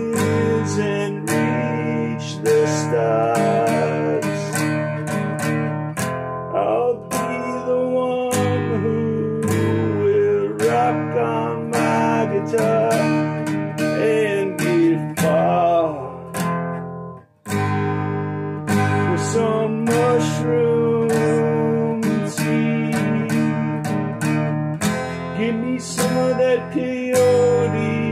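Song led by strummed acoustic guitar. The music drops out for a moment about two-thirds of the way through, then carries on.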